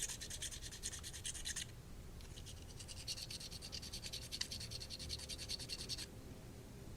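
Paint being scraped off an old bike part with a scraper in rapid short strokes; the scraping stops briefly about a second and a half in, then resumes for about four seconds before stopping near the end.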